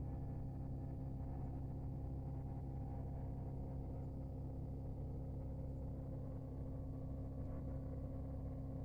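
Steady low rumble with a hum of several held tones, unchanging and without distinct events.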